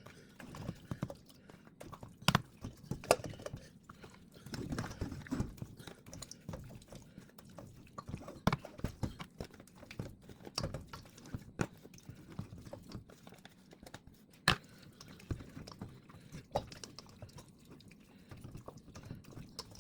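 Hands working butter and spice seasoning into raw chicken pieces: irregular wet squishing with scattered sharp knocks, the loudest about 2, 3, 8.5 and 14.5 seconds in.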